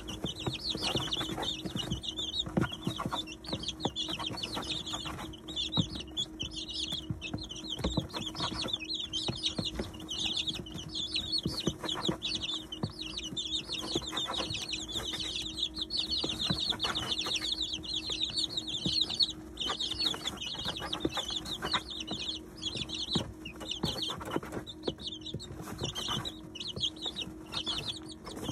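A brood of 19-day-old chicks peeping continuously as they feed, with frequent light taps of beaks pecking at grain and the feeder, over a steady low hum.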